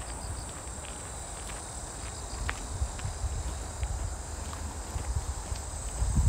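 A steady, high-pitched insect chorus, typical of crickets, with soft low thumps of footsteps underneath.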